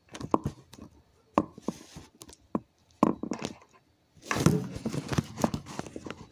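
Small plastic toy figures and accessories being handled and set down on a hard tabletop: scattered light taps and knocks, busier clattering and rustling from about four seconds in, as a figure is tried and fails to stand.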